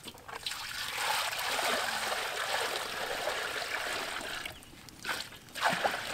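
Water running and splashing, easing off briefly about four and a half seconds in before starting again.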